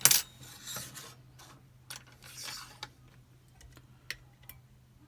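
Small metal parts of a dismantled Chubb Detector lever lock being handled: a sharp clack at the start, two short scraping rubs, and scattered light clicks.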